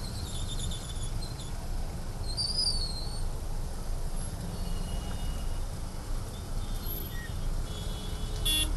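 Steady low rumble of city traffic in a jam, heard from a vehicle, with a few faint high chirps and squeaks scattered through it.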